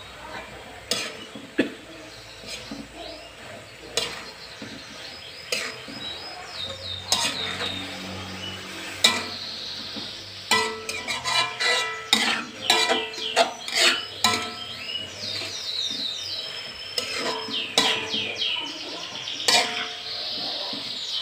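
Metal spatula scraping and clanking against an aluminium wok as cassava leaves are stirred and tossed, in irregular strokes, some with a short metallic ring.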